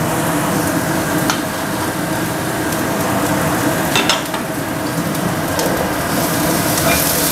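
Chopped garlic and shallots sizzling steadily in hot oil in a non-stick wok, frying until fragrant, with a couple of sharp clicks about a second in and about four seconds in, and a spatula stirring them near the end.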